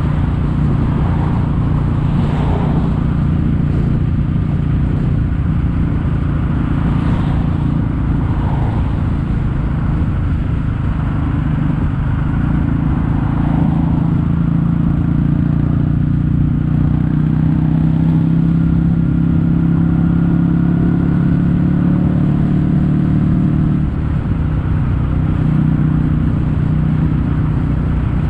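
Kawasaki W800's air-cooled parallel-twin engine running steadily through Yamato stainless-steel Cabton-style silencers as the bike is ridden along the road. A brief dip in level comes a few seconds before the end.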